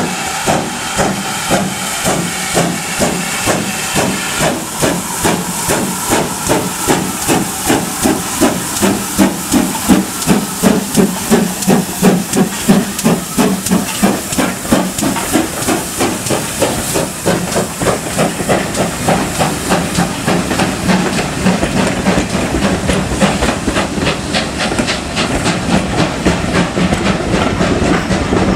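GWR Manor class two-cylinder 4-6-0 steam locomotive working a train past at close range: a steady rhythm of exhaust beats over a continuous steam hiss, loudest as the engine goes by.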